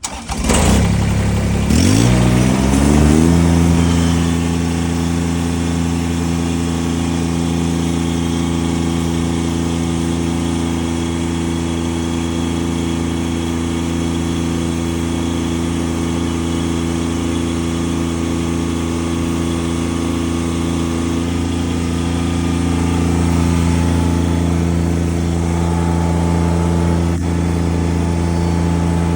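An engine starts up and climbs in pitch over the first three seconds, then runs steadily at one speed for the rest, while a machine lifts a heavy box deer stand into place.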